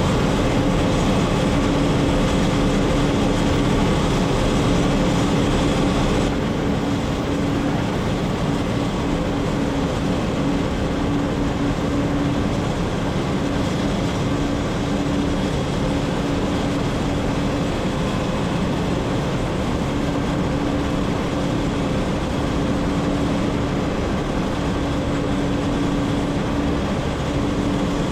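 Combine harvester running steadily while cutting soybeans: a constant machinery drone with a steady hum, easing slightly about six seconds in.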